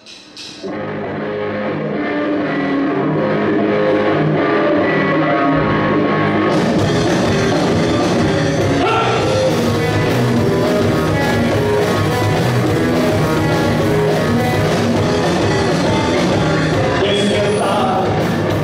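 Rock band playing live: electric guitars, bass and drum kit in a hard-rock, blues style. The music swells up over the first few seconds and turns fuller and brighter about six seconds in.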